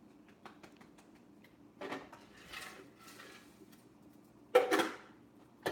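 Hard lumps of brown sugar being broken up by hand and dropped into a stainless steel pot, heard as light ticks and a few short clatters, the loudest about four and a half seconds in.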